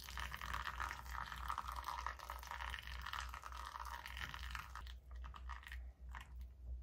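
Hot water poured in a thin stream from a gooseneck kettle onto coffee grounds in a ceramic pour-over dripper, with small crackles throughout. The sound drops to quieter scattered clicks after about five seconds.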